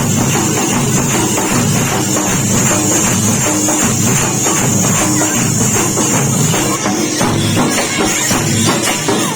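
Drums played loudly in a fast, continuous rhythm.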